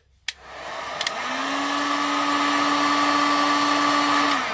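A hot-air blower is switched on with a click, spins up to a steady whirring rush with a hum, and cuts off shortly before the end. It is heating a phone's glued screen to soften the adhesive.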